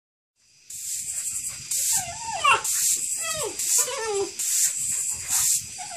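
Broom bristles swishing over a concrete patio, roughly once a second, as a golden retriever puppy attacks the broom. Mixed in, a few short rising-and-falling puppy yips and whines between about two and four seconds in.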